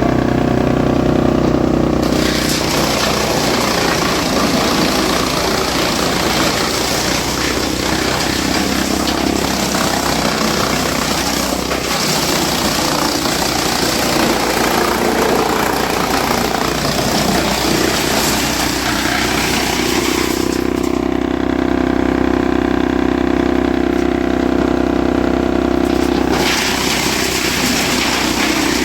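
Wood chipper running with a steady machine hum. For most of the time a harsh grinding noise lies over the hum. It drops away for several seconds about twenty seconds in, leaving the hum alone, then returns near the end.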